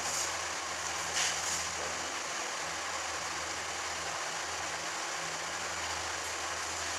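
Room tone: a steady low hum under an even hiss, with one faint short sound about a second in.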